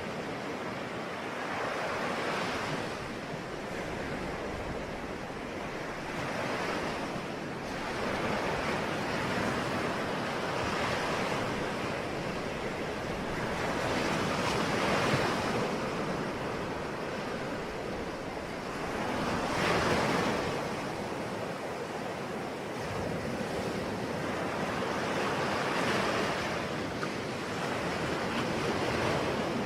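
Ocean waves breaking on a shore, the surf swelling and washing in every few seconds over a steady rush of water.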